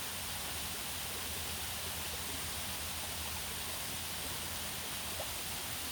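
Steady hiss of water running over a small waterfall, with one faint tick about five seconds in.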